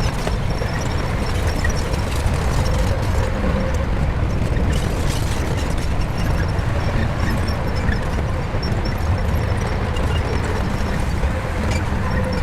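Shantui crawler bulldozer's diesel engine running with a steady, deep rumble.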